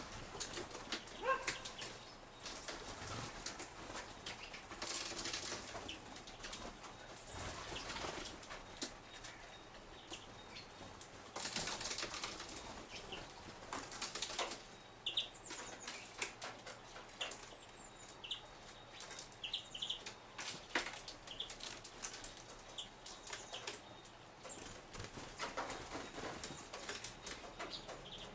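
Small birds fluttering their wings as they land on and leave a wooden feeder, with light taps and scrapes on the wood. A few short high chirps come in the second half.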